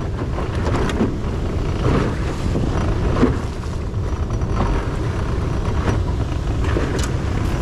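Steady low rumbling noise of wind buffeting the microphone on a fishing boat, with a few faint clicks near the end.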